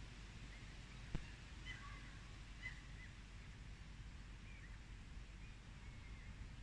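Faint outdoor ambience: scattered bird chirps over a low background rumble, with one sharp click about a second in.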